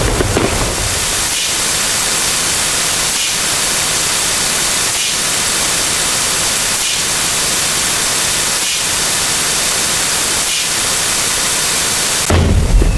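Steady hiss of static-like white noise, brightest in the high frequencies, with a faint regular pulsing about every two seconds. Near the end it cuts to a louder, deeper sound.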